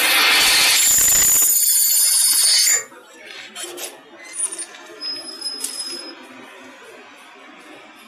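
CNC gantry machine's drill spindle boring through steel plate: a loud, steady cutting noise that stops suddenly about three seconds in, followed by a few quieter metallic clinks.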